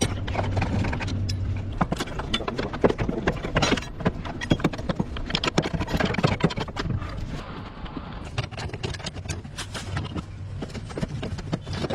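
Irregular clicks and knocks of work on a car, hand tools or metal parts handled, with a low steady hum in the first couple of seconds.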